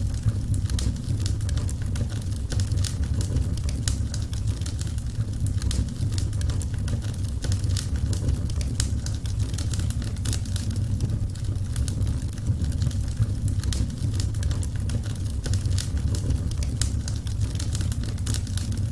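Wood fire burning in a fireplace: frequent small crackles and pops from the burning wood over a steady low rumble of the flames.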